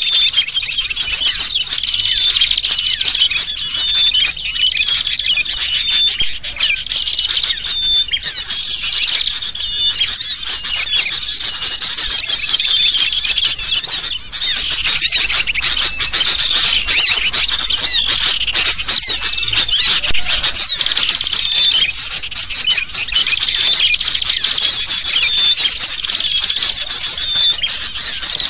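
Bird-trapping lure recording of sooty-headed bulbuls calling in agitation, mixed with a dense chatter of small birds' chirps. A short call phrase recurs every second or two.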